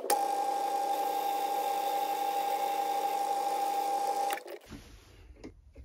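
Myford ML7 lathe running steadily with a constant whine while taking a light turning cut on small hex bar stock. The sound cuts off sharply about four seconds in, leaving only a faint low hum.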